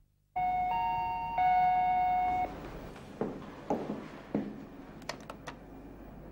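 Electronic doorbell chime of a video door intercom ringing for about two seconds, steady tones with a second higher tone joining in. It is followed by three soft thuds and then a few quick sharp clicks.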